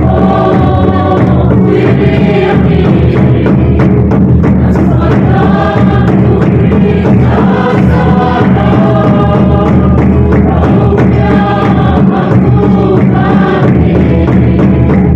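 A congregation singing a gospel hymn loudly together, with a steady beat under the voices.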